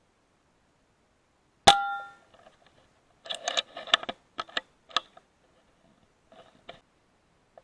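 A single shot from a .177 air rifle: a sharp crack with a brief metallic ring. About two seconds later comes a quick string of clicks and knocks, then a couple of fainter clicks.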